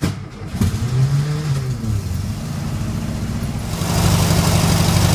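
1972 Volkswagen Super Beetle's air-cooled flat-four engine on a cold start: it fires within about a second of the key being turned, revs up and falls back, then settles into a steady, evenly pulsing idle. About four seconds in it becomes louder, heard close to the open engine lid.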